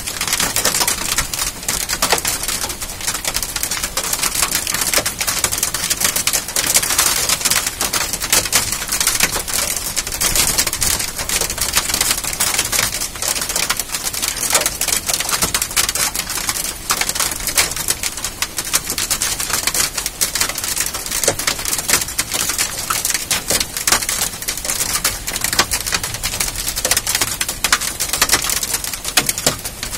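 Hailstorm: hailstones pelting down on the ground and nearby surfaces, a loud, dense, unbroken clatter of small hits.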